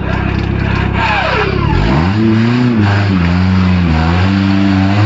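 Off-road 4x4 engine revving hard under load. The revs drop steeply about a second in, then rise and dip over and over as the throttle is worked, with a dense rush of noise underneath.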